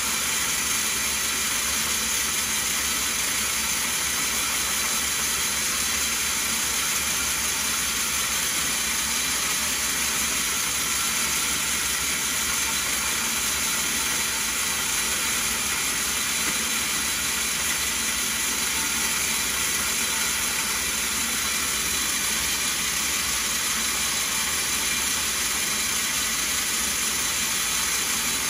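Stone bead milling machine running, a batch of rough stone beads grinding round in its wet drum with a steady, dense hiss.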